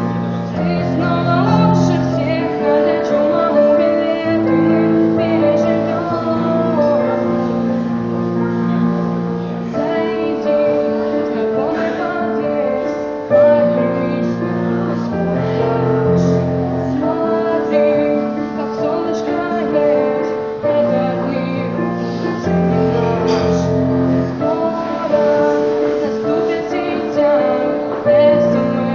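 A woman singing a song live to her own instrumental accompaniment, with long held notes in the melody.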